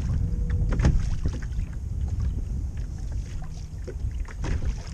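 Water lapping and slapping against a fishing kayak's hull on a choppy sea, with a low wind rumble on the microphone and scattered small splashes and knocks.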